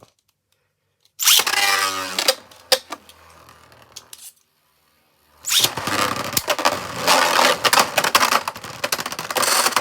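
Beyblade spinning tops in a plastic stadium. About a second in, a launch whirs with a pitch that falls away, followed by quieter spinning. After a brief silence, Ultimate Valkyrie and Dynamite Belial spin and collide in a steady, loud rattle full of sharp clicks.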